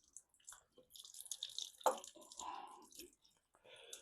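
Leftover coolant dripping and splashing from the engine with its water pump removed, amid faint small clicks and a light knock about two seconds in.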